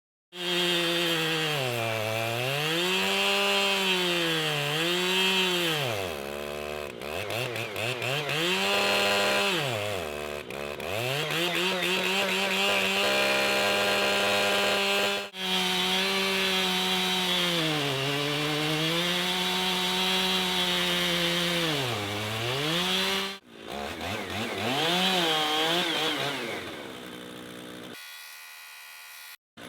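Chainsaw engine of a chainsaw mill running hard as it rips through an elm log. Its engine speed repeatedly sags and climbs back, and the sound breaks off abruptly a few times.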